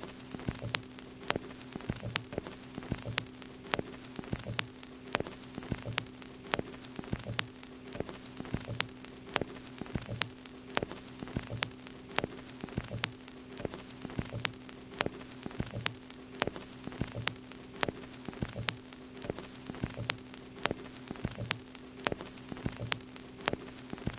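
A steady low hum with fine hiss and irregular crackling clicks, several a second, the kind of crackle and static laid on as a worn-tape or record effect.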